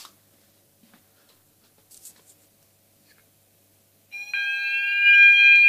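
A fire alarm goes off about four seconds in, set off by aerosol spray during a test. It sounds loud, with several steady tones layered under a tone that sweeps upward about twice a second.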